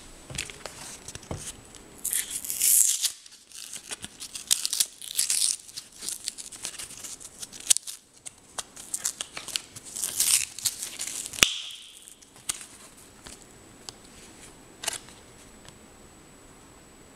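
Cardboard-and-plastic blister pack being torn and peeled open by hand, in irregular bursts of tearing and crinkling, with one sharp click about two-thirds of the way through. The tearing dies down after that, leaving a few faint clicks.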